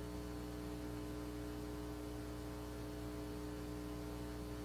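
Steady electrical mains hum with a faint hiss underneath, the background noise of an old broadcast audio track.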